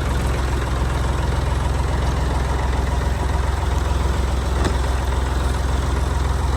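Old Massey Ferguson tractor's engine running steadily at close range while it pulls a potato plow to cut a drainage trench.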